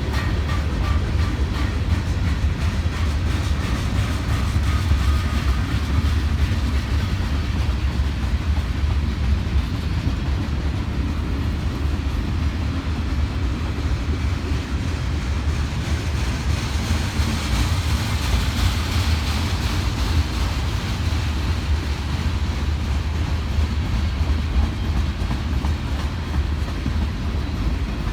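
Mixed freight train rolling past on steel rails: a steady rumble of wheels on track, with a brighter hiss about two-thirds of the way through.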